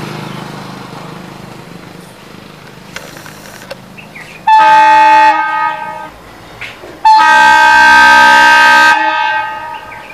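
Diesel locomotive horn sounding two loud blasts as the train approaches: a short one about four and a half seconds in, then a longer one of about two seconds. A low rumble fades away before the first blast.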